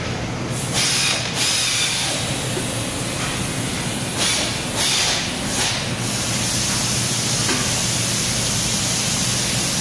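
Industrial washer and dryer system running: a steady hiss over a low machine hum, with several louder surges of hiss in the first six seconds before it settles into a continuous hiss.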